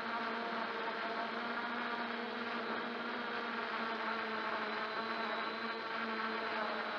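MJX Bugs 2W quadcopter's brushless motors and propellers, picked up by a camera mounted under the drone: a steady buzzing hum made of several held tones.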